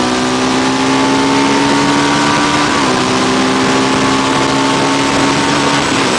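Honda Varadero XL1000's V-twin engine pulling hard under full acceleration, its note climbing steadily, dropping with an upshift about three seconds in and climbing again, over a steady rush of wind. Near the end the engine note fades under the wind.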